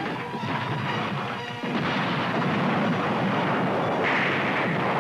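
Car crash sound effects in a film trailer soundtrack: heavy booming impacts and crashing noise under music. A big crash comes in about one and a half seconds in and the noise stays loud after it.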